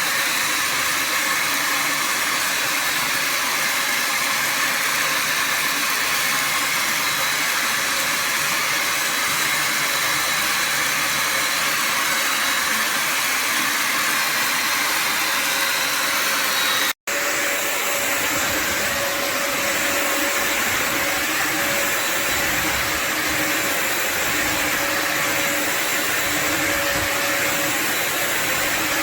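Bissell Symphony Pet all-in-one vacuum and steam mop running, its vacuum motor giving a steady whirring rush. About seventeen seconds in the sound cuts out for an instant, then resumes with a steady whine added.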